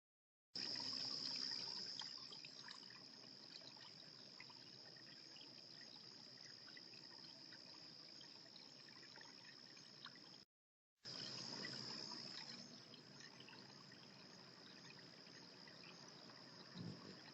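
Faint outdoor ambience: a steady high-pitched insect drone over a soft trickling hiss, dropping out twice for a moment.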